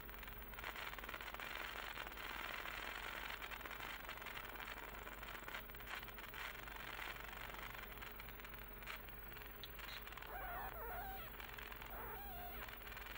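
12,000-volt plasma arc discharge whirling around an electrode inside a ring magnet, giving a steady electrical hiss over a low mains hum.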